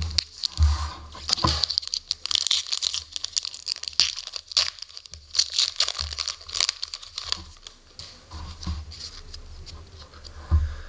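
Foil wrapper of an SPx hockey card pack being torn open and crinkled in the hands, crackling irregularly and dying down after about seven seconds. A few soft knocks come as cards are laid on a wooden table.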